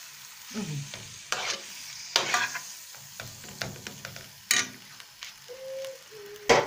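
Raw minced pork and beef starting to fry in a little oil in a pan, sizzling as they brown, with scattered clicks and scrapes as the meat is handled and stirred. A sharp knock near the end.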